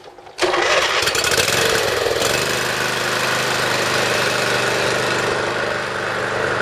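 V-twin engine of a zero-turn riding lawn mower, fitted with a second add-on muffler at the tailpipe, catches about half a second in. It runs unevenly at first, then settles after about two seconds into a steady run.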